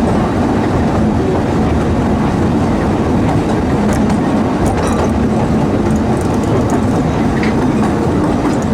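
Theme-park steam train running along its track: a steady rumble and rattle of the train on the rails, with a few light clicks about four to five seconds in.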